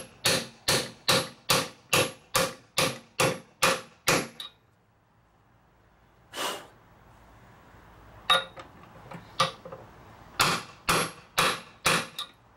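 Short-handled sledgehammer striking a steel socket used as a driver, hammering a new upper ball joint into a Dana 44 steering knuckle: a steady run of ringing metal blows about two a second, a pause, a single blow, a few lighter taps, then another run of five blows near the end.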